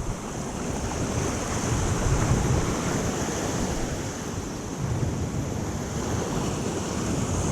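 Ocean surf washing on the shore, swelling a couple of times, with wind rumbling on the microphone.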